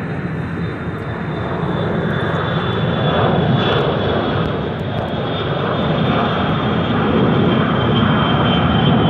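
Jet engines of a low-flying airliner-type aircraft: a broad rumble with a steady high-pitched whine on top, growing louder over the seconds.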